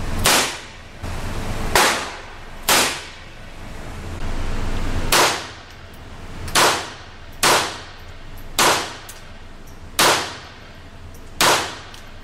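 .22 rimfire handgun shots on an indoor range: nine single, deliberately paced cracks, each with a short ringing echo. The first few come from a Smith & Wesson K-22 revolver, the rest from a Colt Woodsman .22 semi-automatic pistol.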